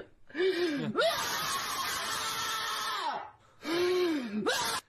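A woman's voice crying out in drawn-out, strained wails: a short one, a long one of about two seconds, then another short one, each rising and falling in pitch.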